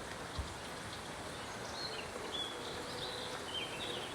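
Steady outdoor background hiss with scattered faint high bird chirps, and a soft low thump about half a second in.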